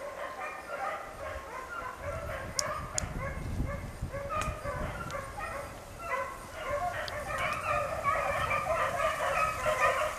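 A pack of beagles baying on a rabbit's track, many short, overlapping hound voices going on without a break and growing busier in the second half.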